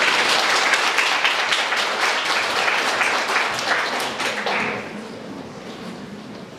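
Audience applauding: many hands clapping, loud for about four and a half seconds, then dying away.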